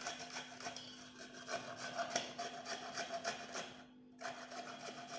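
Carrot being grated on a flat handheld steel grater: quick, repeated rasping strokes, with a brief pause about four seconds in.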